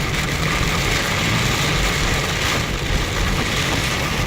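Steady noise inside a car driving through heavy rain: the low rumble of the engine and tyres on the wet road under a continuous hiss of rain on the car.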